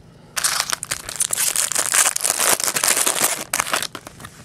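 Foil wrapper of a 2011 Bowman jumbo baseball card pack being torn open and crumpled: a dense, loud rustle that starts about half a second in and lasts about three seconds.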